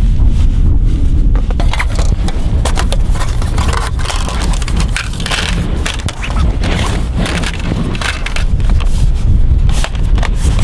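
Irregular crunching and crackling handling noises over a constant low rumble of wind on the microphone.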